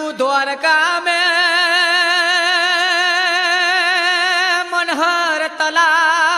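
A man singing regdi, a Gujarati folk devotional chant. He holds one long high note with an even vibrato for several seconds, then breaks into shorter phrases near the end.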